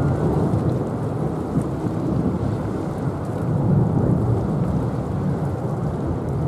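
Boeing 777-200ER's twin jet engines at departure power during the takeoff roll, heard across the water as a loud, steady low rumble.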